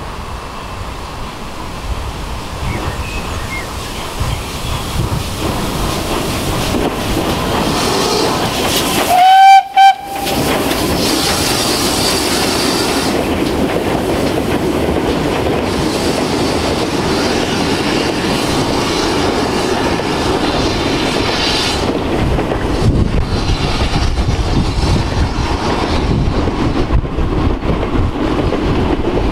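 A steam locomotive sounds a short, loud whistle about nine seconds in. Before and after it, a goods train of wagons rumbles and clatters along the rails.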